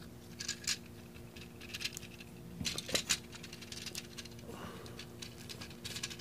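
Light plastic clicks and rattles of a Transformers Robots in Disguise Warriors-class Optimus Prime figure being handled, its parts worked by the fingers, in scattered bunches with the densest about half a second in and around three seconds in.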